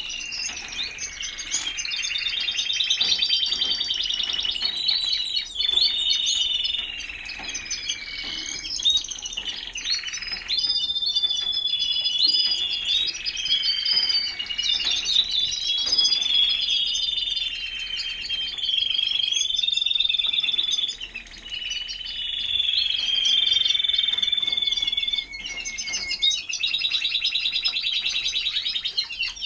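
Timbrado español canaries singing: an almost continuous song of fast trills and rolls, shifting to a new phrase every second or two, with a couple of brief breaks in the second half.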